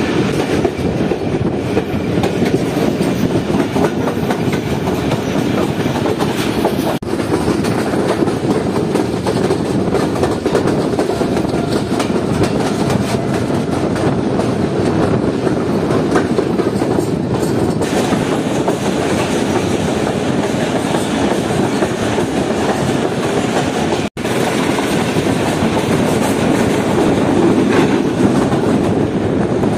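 Passenger train running on the track, heard from aboard: a steady rumble with the clickety-clack of wheels over the rails. The sound cuts out for a split second about 24 seconds in.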